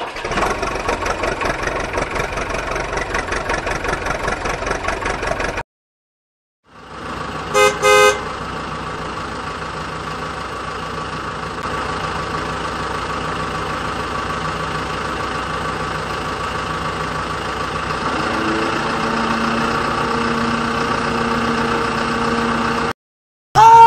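Vehicle engine running with a pulsing beat, cut off for about a second, then two short loud horn toots about eight seconds in, after which the engine runs on steadily.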